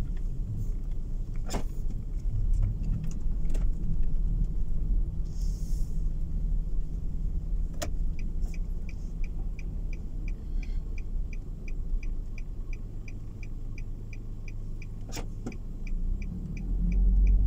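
Car cabin on a snow-packed road: steady low engine and tyre rumble with a few sharp knocks. From about halfway through, a turn-signal indicator clicks steadily, roughly two to three clicks a second.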